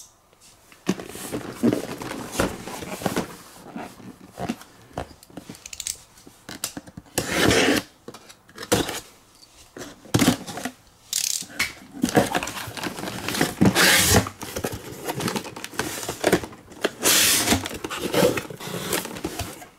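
A cardboard Hot Wheels shipping case being opened and the carded cars inside handled: irregular rustling and scraping of cardboard and plastic packaging, with a few longer, louder scrapes.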